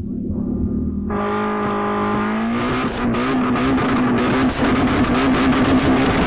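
1990s Group A rally car engine running hard on a tarmac stage. It gets louder about a second in and rises in revs, then holds high with a run of sharp crackles.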